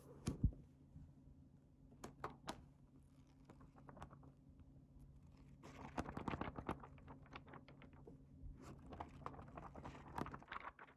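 Paper notebook being handled and its grid pages turned: a soft thump just after the start, then papery rustling and quick crackly ticks of pages, busiest about halfway through and again near the end.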